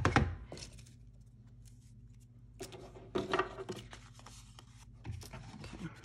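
Craft-table handling noises: a sharp knock right at the start, then light taps and rustles as a plastic tag punch and a stiff paper faux-leather piece are moved about on a plastic paper-trimmer base.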